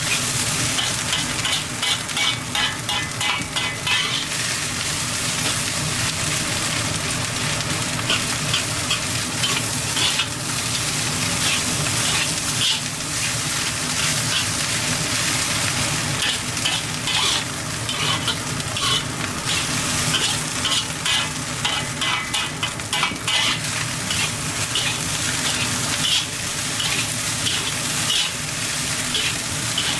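Crab roe fried rice being stir-fried in a hot pan: a steady sizzle, with runs of quick stirring strokes scraping the pan, several a second, in the first few seconds and again in the second half.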